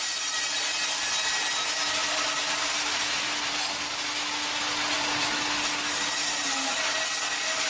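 Wimmer horizontal band sawmill cutting along a log: a steady hiss of the band blade in the wood over a steady machine hum.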